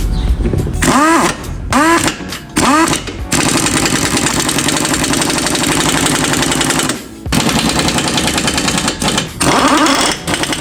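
Pneumatic impact wrench: three short spin-ups whose pitch rises and falls, then a long run of rapid hammering on a nut lasting about four seconds, a brief stop, and more short bursts.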